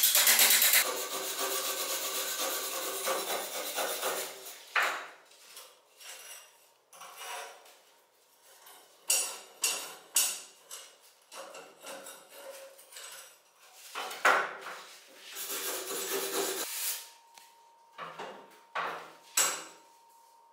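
A power cutting disc stops about a second in, its sound fading over the next few seconds. Then come irregular knocks, clanks and scrapes as rusty iron shears are moved about and set down on the workbench.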